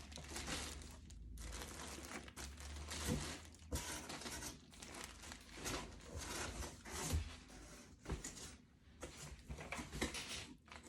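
Packaging crinkling and tearing in irregular bursts as a yarn shipping box is handled and opened.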